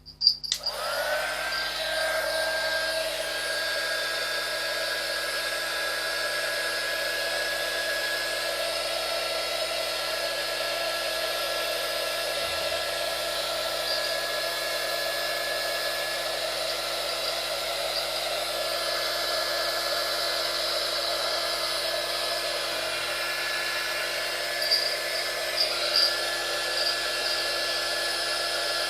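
Small 300-watt hot air gun (heat gun) switched on. Its fan whine rises to speed within the first second, then it blows steadily with a constant whine over a hiss. There are a few light knocks near the end.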